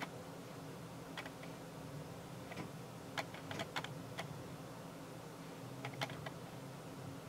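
Faint, scattered light clicks and taps, about a dozen at uneven intervals, over a low steady hum. These are small handling noises of a makeup brush and fingernails while eyeshadow is worked into the eyelid crease.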